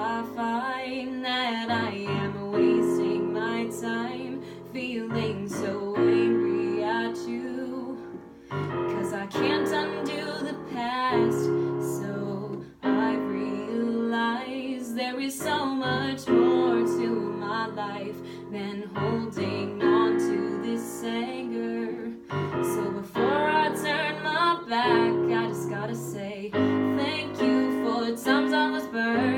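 A woman singing over her own digital piano accompaniment, the piano playing sustained chords that change every second or two.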